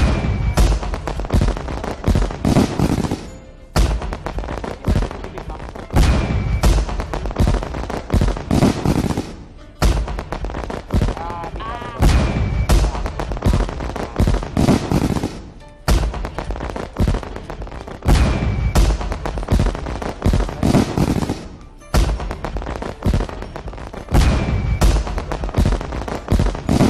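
Fireworks sound effect: rapid bangs and crackles in a loop that repeats about every six seconds.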